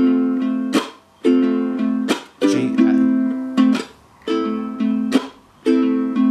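Low-G ukulele playing the song's chord pattern, thumb, thumb, chunk, up: plucked and strummed chords that ring and are then cut off by muted chunk strums, leaving short gaps between groups.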